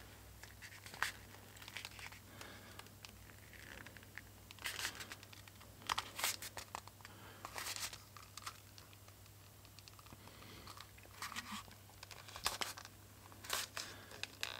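Leather knife sheath being handled by hand, folded and pressed together along its glued edge: scattered short dry rustles and crackles.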